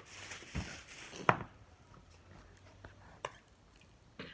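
Flarp noise putty being pushed and worked in its tub: a hissy squelch for about the first second, ending in a sharp smack, then a few faint clicks.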